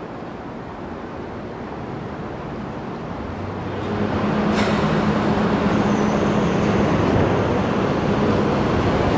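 New York City Subway train running on elevated track: a steady, moderate rumble at first, growing louder about four seconds in as a train runs past at close range, with a steady motor hum and a brief high whine.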